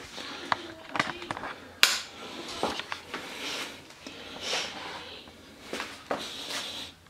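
Handling and movement noise: scattered sharp clicks and knocks, the loudest a little under two seconds in, with several short rustling hisses in between.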